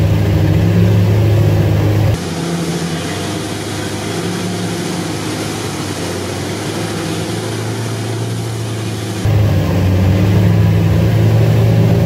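Off-road 4x4's engine running steadily under load while it drives through deep mud and water. About two seconds in the sound becomes thinner and hissier, heard from inside the cab, and the full engine sound returns about nine seconds in.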